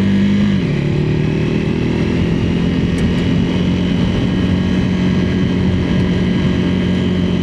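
Motorcycle engine running under way, dropping in pitch about half a second in as if shifting up a gear, then rising slowly as the bike picks up speed, over steady wind and gravel road noise.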